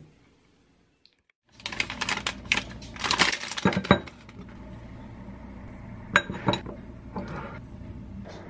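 Dishes clattering: a ceramic bowl set down on a stone countertop and a spoon knocking and clinking against it, a dense run of sharp clinks starting about a second and a half in, then a few single clinks later on.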